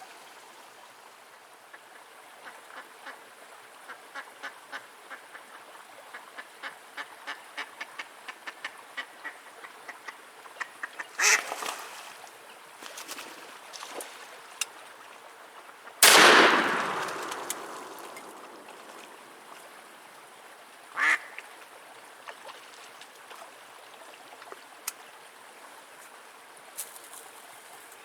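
Live hen mallard decoy quacking in a long run of short, quickening quacks, then a single loud shotgun shot about halfway through that rings away over a couple of seconds. A few scattered quacks follow.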